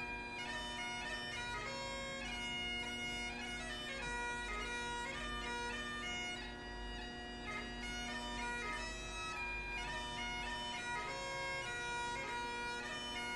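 Great Highland bagpipe being played: a steady drone chord held under a chanter melody that moves quickly from note to note.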